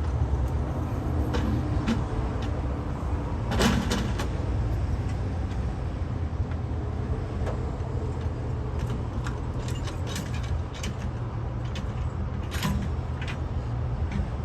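JCB backhoe loader's diesel engine running steadily, with scattered short clanks and knocks over it; the loudest comes about three and a half seconds in.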